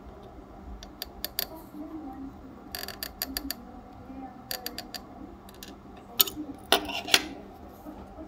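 Small screwdriver clicking and scraping against the trim potentiometers and metal frame of a CD player's laser pickup mechanism while the trimmers are being set: irregular sharp clicks in small clusters, the loudest group about seven seconds in.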